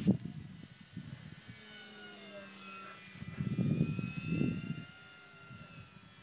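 Brushless electric motor and propeller of a small foam-board RC plane (Turnigy G10 870kv motor, 9.5x7.5 prop) whining faintly overhead, its pitch slowly wavering up and down. A low rumble on the microphone for about a second past the middle.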